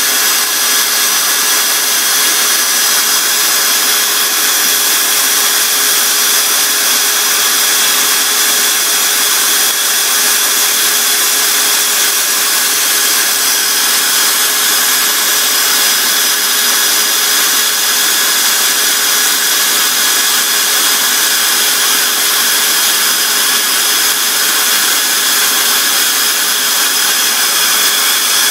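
Electric drill running at a steady speed, spinning a cork float body on a rod against a strip of sandpaper as it is sanded into shape: a steady motor whine under the rasp of the abrasive on the cork.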